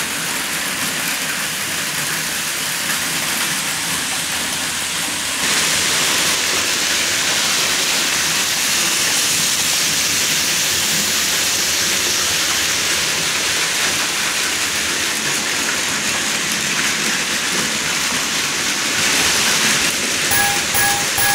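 Model train running on the track: a steady rushing hiss of motor and wheels, louder from about five seconds in. Near the end a model level-crossing warning bell starts ringing, about two dings a second.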